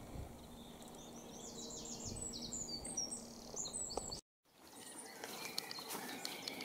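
Woodland birdsong: a small songbird sings a quick run of high chirping notes about two seconds in, over a low rumble. The sound cuts out for a moment about four seconds in, then faint ticks and rustles follow.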